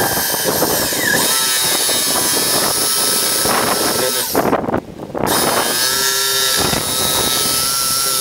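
Electric drill boring a one-inch hole through a fiberglass boat deck. It runs steadily, stops briefly about halfway through and then starts again.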